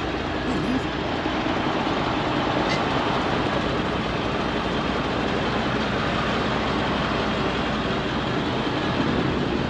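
Steady, even vehicle noise: a heavy truck's engine running with road traffic.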